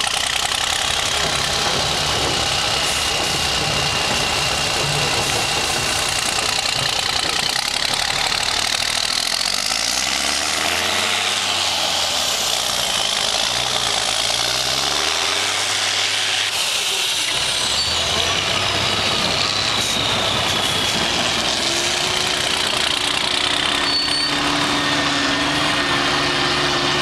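Diesel engine of a three-axle off-road trial truck working through a rough course, its revs rising and falling repeatedly through the middle. It settles into a steady, even drone near the end.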